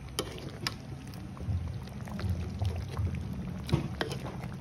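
Chicken asado simmering in thick sauce in a wok: a few sharp pops, the loudest near the end, over a steady low rumble.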